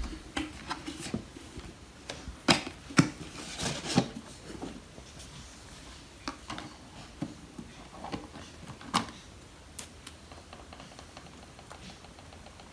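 Irregular taps, knocks and rustles of hands handling a cardboard spin-art box, its paper sheet and plastic paint squeeze bottles, loudest a few seconds in.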